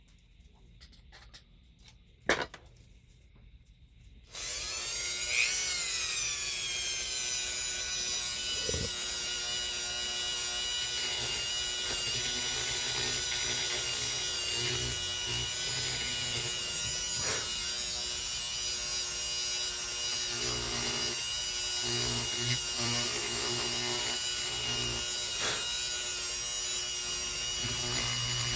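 A few faint clicks, then about four seconds in a small high-speed rotary tool starts and runs at a steady high whine. A lower grinding sound comes and goes as the bit digs into the circuit board.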